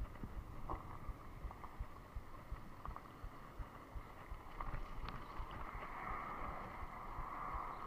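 Wind buffeting the microphone of a bicycle's handlebar-mounted camera while riding, an uneven low rumble. In the second half a steady hum grows louder above it.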